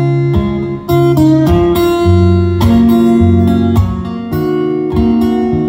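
Acoustic guitar strummed, a run of chords changing about every second, with no singing: the instrumental close of the song.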